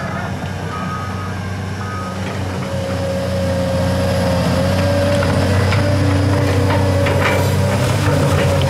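Caterpillar hydraulic excavator's diesel engine running under load, a warning beeper sounding twice in the first two seconds. About three seconds in it gets louder with a steady hydraulic whine, and near the end the bucket scrapes and knocks as it digs into the dirt.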